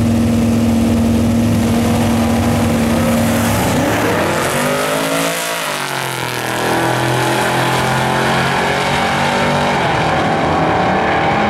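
Two drag-racing cars, a compact pickup and a full-size sedan, launching off the line and running down the drag strip at full throttle. The engines hold a steady note on the line, then climb and fall in pitch from about four to six seconds in as the cars accelerate past, and run on at a steadier note down the track.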